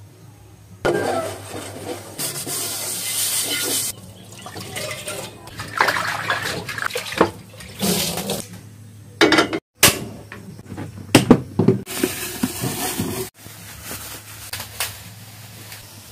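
Water running and splashing in several short stretches, each starting and stopping abruptly.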